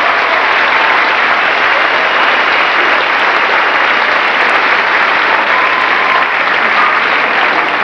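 Large audience applauding steadily, a dense continuous clapping.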